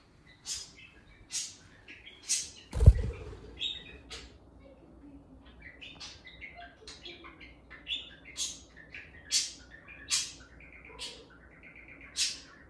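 Budgerigar chirping: a run of short, sharp high chirps about once a second, with a single loud thump about three seconds in.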